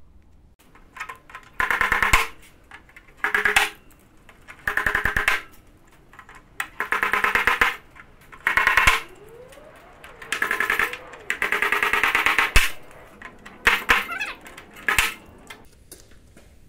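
A hand-held power tool pressed against a black car door panel during dent repair, running in about nine short bursts of rapid buzzing hammering, each half a second to a second long, with short pauses between.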